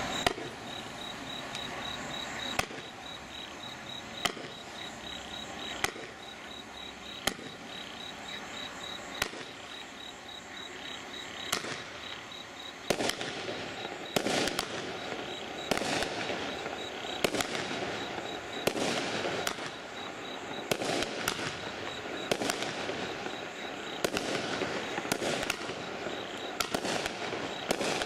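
TNT Hope and Glory firework barrage cake firing shot after shot: a string of sharp bangs with continuous crackling and fizzing between them. The bangs come about a second and a half apart at first and closer together from about halfway through.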